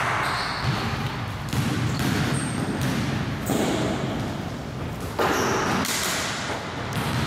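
Basketball game on a wooden gym floor: the ball bounces and thuds amid players' footfalls, with a few short, high sneaker squeaks, echoing in a large hall.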